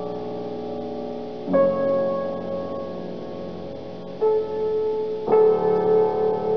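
Solo piano playing slow, sustained chords, with a new chord struck about one and a half seconds in, another note a little after four seconds, and a fuller chord just past five seconds.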